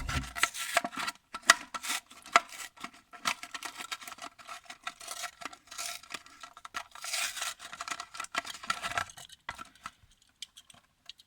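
A die-cast toy car's plastic blister pack and card backing being opened by hand: irregular crinkling, crackling and sharp clicks of plastic, dying away about nine seconds in.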